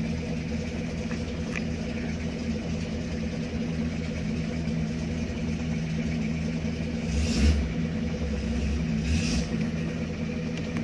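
Off-road vehicle's engine running steadily at a constant speed, heard from inside the open cab. Two short thuds, each with a rush of noise, come about seven and nine seconds in.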